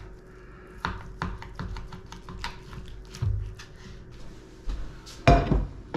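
Kitchen knife slicing raw bacon on a plastic cutting board: a run of short, sharp taps as the blade cuts through and hits the board, with a louder knock near the end.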